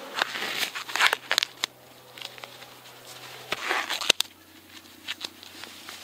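Handling noise: scattered sharp clicks and short rustles as a gloved hand works close to the camera's microphone.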